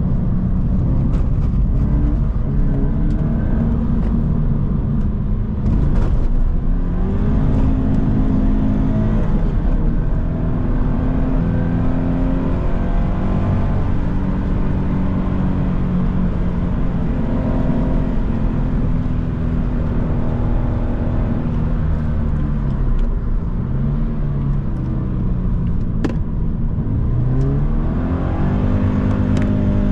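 Subaru BRZ's 2.0-litre flat-four engine heard from inside the cabin, its pitch climbing under acceleration and dropping back several times as the car is driven through bends, over steady tyre and road noise. A few brief sharp clicks.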